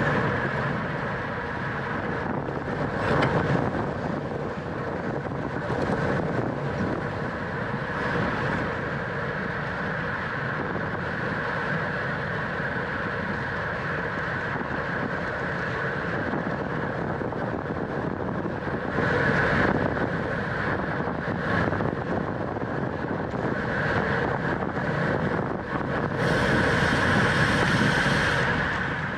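Wind rushing over the microphone of a camera on a racing bicycle, with steady riding noise underneath; it swells briefly about three seconds in, again around twenty seconds, and for a couple of seconds near the end.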